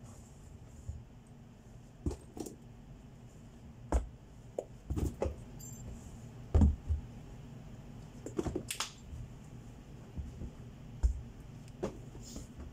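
Irregular knocks, taps and rustles of packs and items being handled and packed into a cardboard carton, with a few heavier thumps about 4, 6.5 and 11 seconds in.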